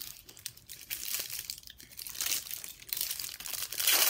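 Food wrapping crinkling and rustling as it is handled, in uneven crackly bursts that grow loudest near the end.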